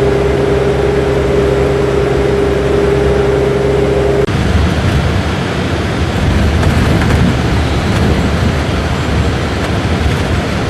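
Motor vehicle running: a steady engine hum that changes abruptly about four seconds in to a rougher, noisier road rumble.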